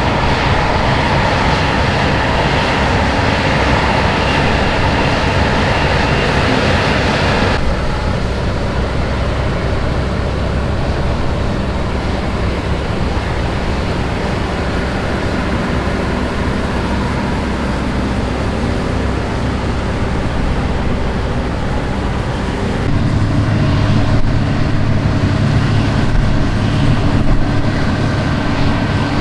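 New Holland combine harvester running steadily while harvesting wheat. The sound changes abruptly about a quarter of the way in, losing its higher hiss, and again near the end, where a deeper hum grows louder.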